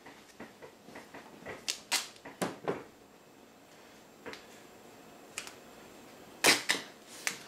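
Black duct tape pulled off the roll in a few short rips about two seconds in, then a louder rip from the roll near the end.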